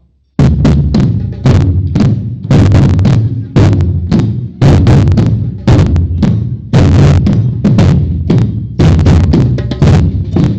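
Batucada drum ensemble playing: deep surdo bass drums and snare drums striking together in a samba rhythm. The drumming starts suddenly about half a second in, with heavy accents about once a second.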